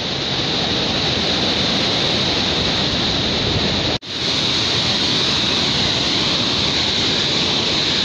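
Steady rushing of a waterfall cascading over rocks, with a momentary gap about halfway through.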